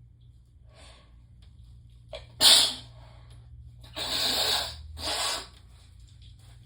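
A woman sneezing in a fit brought on by Chhinkni sneezing powder: one sharp sneeze about two and a half seconds in, followed by two longer breathy bursts of air.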